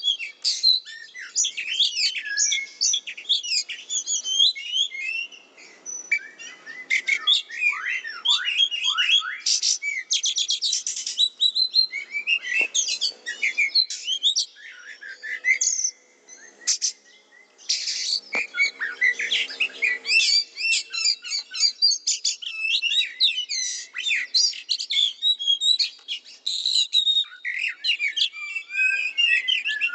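Oriental magpie-robin (kacer) singing continuously: a fast, varied song of whistles, chirps and rapid trills in the excited, rapid-fire style bird keepers call "nembak", with a brief pause a little past the middle.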